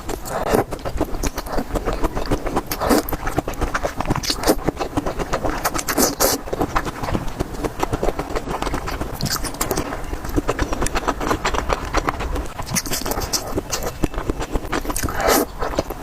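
Close-miked eating of spicy noodles and dumplings: chewing with a dense run of wet mouth clicks, broken by several short, louder slurps.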